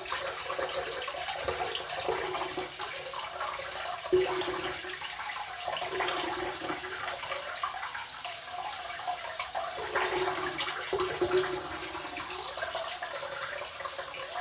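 Hot water splashing in a bathroom sink as a double-edge safety razor is swirled in it to warm it up before shaving.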